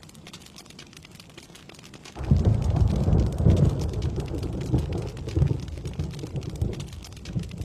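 Rain falling steadily, with a roll of thunder that breaks in suddenly about two seconds in, rumbles low for about five seconds and fades away near the end.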